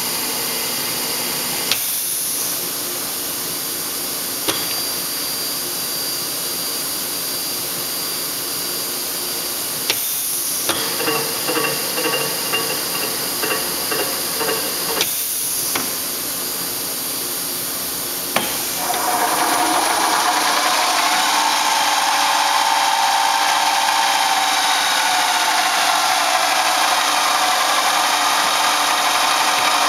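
1982 Phillips gun drilling machine running: a steady motor hum with hiss, broken by a few sharp clicks and, about a third of the way in, a few seconds of light ticking about twice a second. Past the middle a click is followed by a louder, higher running sound whose tones slowly drift, as another part of the machine starts up.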